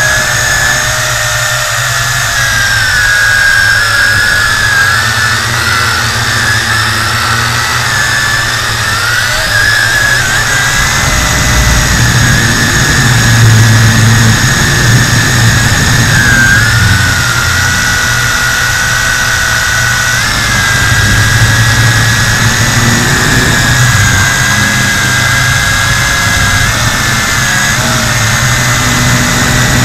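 Tarantula X6 quadcopter's motors and propellers whining loudly, recorded by a dashcam mounted on the drone itself. The pitch wavers up and down as the throttle changes, over a low rumble.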